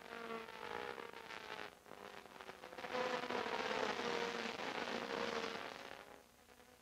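A pack of Formula Atlantic single-seaters running at high revs through a corner, their four-cylinder racing engines blending into one buzzing, crackly drone. The engine notes fall slightly as the first cars pass, then a second, louder swell comes about three seconds in as the bunched field goes by, fading away before the end.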